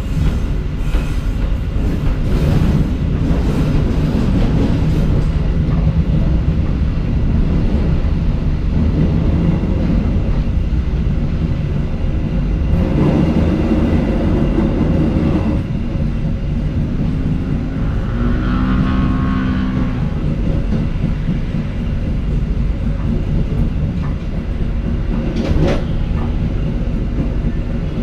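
Passenger train running along the track, heard from the rear of the train: a steady wheel-on-rail rumble with a run of clicks over rail joints in the first few seconds. A brief pitched tone sounds about two-thirds of the way through, and a single sharp click comes near the end.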